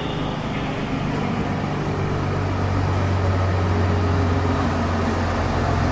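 Diesel multiple-unit train pulling slowly into a station, its engine giving a steady low drone that grows slightly louder as it approaches.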